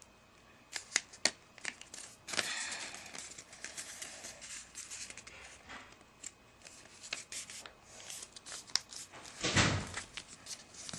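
A sheet of origami paper being handled and folded: crisp rustles, crackles and sharp creasing clicks. About nine and a half seconds in comes a louder rustle with a dull bump.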